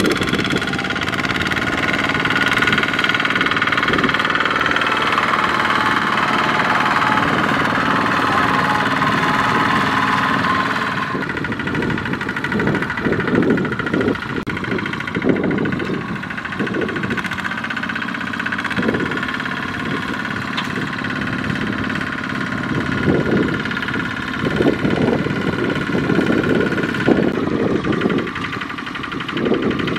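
Small single-cylinder diesel engine of a two-wheel walking tractor running hard as it pulls a loaded trailer through sticky mud. Steady at first; from about ten seconds in the sound turns uneven, with irregular heavy low chugs as the tractor labours in the mire.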